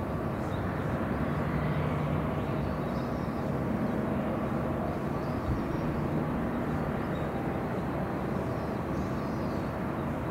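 Steady low drone of distant ship engines carrying across the harbour water, with a few faint high chirps now and then.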